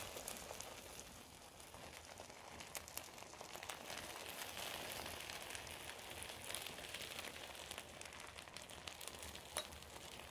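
Hot phyllo baklava rolls, straight from the oven in their metal baking tray, sizzling steadily with scattered crackles as room-temperature syrup is soaked up by the hot pastry.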